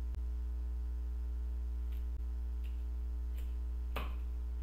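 Steady low electrical hum throughout, with a few short knife taps as a carrot is cut on a wooden chopping board, the clearest about four seconds in.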